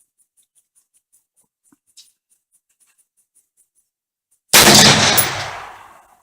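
A single shot from an AR-15 rifle chambered in 6x45 (6mm-223), firing a 100 gr Hornady round-nose handload, about four and a half seconds in: a loud crack whose echo dies away over about a second and a half.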